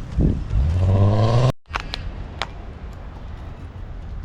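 A passing motor vehicle's engine rising in pitch as it accelerates, cut off abruptly about a second and a half in. A low steady outdoor background with a few light ticks follows.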